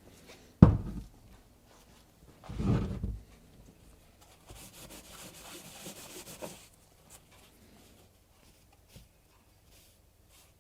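Workbench handling noises while the ball bearings are being cleaned: a sharp knock about half a second in, then a short rub and a longer, hissy scrubbing, followed by a few faint ticks.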